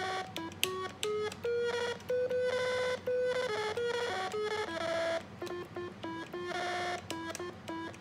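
A 1970s programmable electronic door chime, converted into a synthesizer, played from its keys. It gives a run of electronic beeping notes that step up and down in pitch. Some longer notes waver, and the notes come shorter and quicker in the second half.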